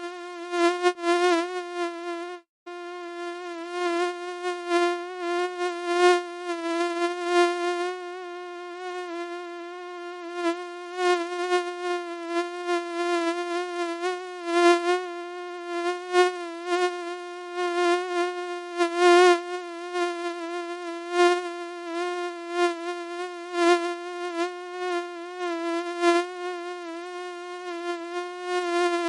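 Mosquito wing whine: one steady high hum with many overtones, repeatedly swelling louder and fading back. It breaks off for an instant about two and a half seconds in.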